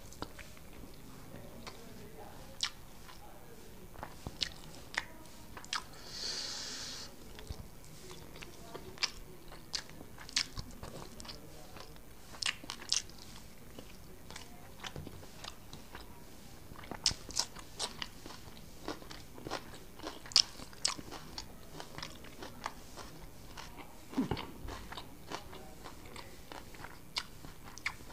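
A man eating chicken biryani by hand, close to the microphone: chewing mouthfuls, with many short sharp mouth clicks and smacks scattered throughout. There is a brief hiss about six seconds in.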